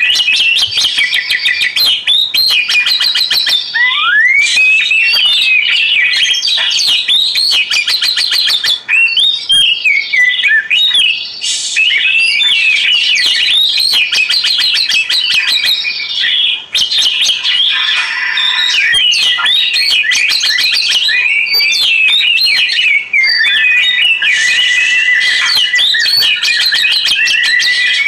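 Oriental magpie-robin (kacer) singing a loud, unbroken, varied song of fast trills and whistled up-and-down glides. A long held whistle comes in for the last few seconds.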